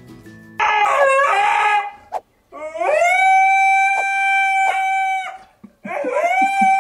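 Husky howling: a short call with a wobbling pitch, then a long howl that swoops up and holds one steady note for over two seconds, and a third howl starting near the end.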